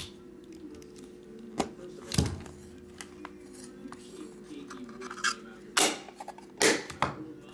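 Hard clear plastic card case being slit open with a utility knife and then handled, with a string of sharp plastic clicks and knocks as the stack of cards is slid out of it; the loudest knocks come about two seconds in and near the end.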